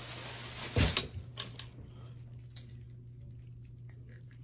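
A short hiss of rustling fades, and one loud thump lands about a second in. Then come faint scattered clicks and smacks of close-miked eating, food taken by hand and chewed, over a steady low hum.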